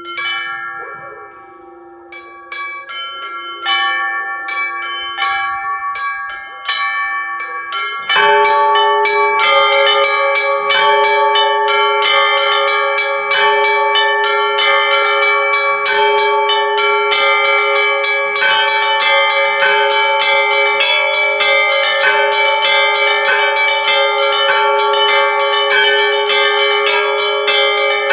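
Russian Orthodox church bells ringing. At first a few small bells strike sparsely, each note ringing on. About eight seconds in, the big bells come in and the full set rings a fast, continuous festive peal, with small bells struck rapidly over the sustained deeper tones.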